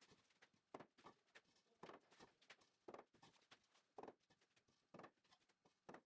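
Near silence in a small room, with faint knocks and taps about once a second.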